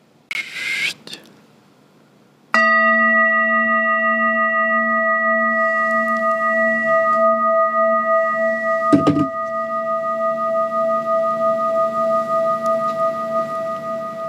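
A brass singing bowl struck once about two and a half seconds in, ringing on with several steady tones and a slow wavering pulse. A second knock comes about nine seconds in while it keeps ringing. A brief rustle of handling comes first.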